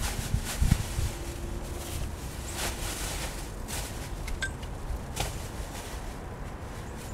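Rummaging inside a pickup's cab: papers and bags rustling, with a thump under a second in and scattered small knocks and clicks.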